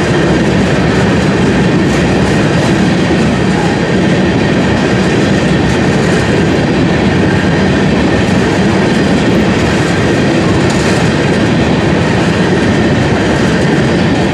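Freight train of covered hopper cars rolling past close by: a loud, steady rumble and clatter of steel wheels on the rails.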